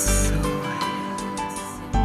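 Background music with sustained notes over a deep bass note at the start.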